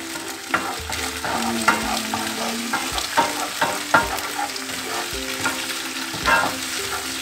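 Egg being scrambled with a spatula in a pan of hot oil with sautéed shallots, garlic and chilli: the oil sizzles steadily while the spatula scrapes and knocks sharply against the pan, irregularly, about once or twice a second.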